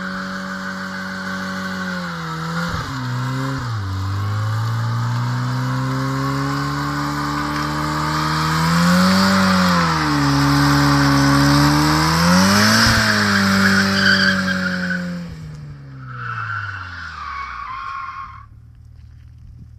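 Turbocharged X20XEV 2.0 16-valve four-cylinder of a rear-wheel-drive Opel Vectra B held at high revs while the rear tyres spin and squeal in a burnout, wearing the tyres down. The revs dip briefly a few seconds in and flare twice later; the squeal stops about three-quarters of the way through and the engine note falls away.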